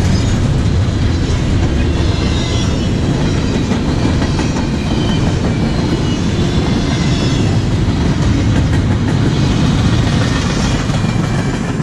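Double-stack intermodal freight train's well cars rolling past close by: a loud, steady rumble and clatter of steel wheels on the rails.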